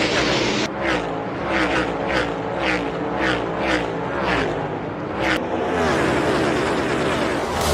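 NASCAR stock cars' V8 engines at full speed, several cars passing with their engine pitch sliding up and down. The sound changes abruptly about a second in and again about five seconds in.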